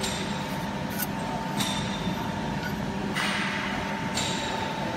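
Steady workshop machinery hum with a constant tone, over which come a few short metal clicks and, about three seconds in, a brief scrape as a nut and rubber ring on a steel roller shaft are worked by hand.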